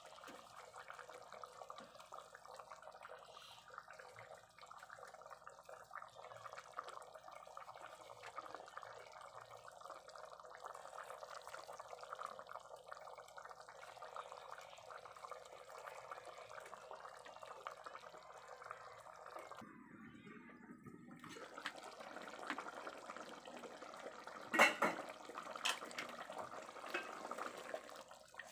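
Pork humba sauce simmering in a pot, bubbling steadily as the braise cooks down while the pork softens and the sauce thickens. The bubbling drops out briefly about twenty seconds in, and a couple of sharp knocks sound near the end.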